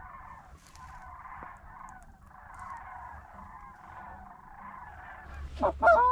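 Flock of geese honking continuously, many overlapping calls, with a few louder, closer honks near the end.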